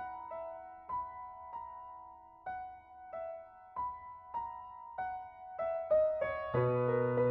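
Background music: a gentle piano-like melody of single struck notes that ring and fade, quickening near the end, where fuller, lower chords come in.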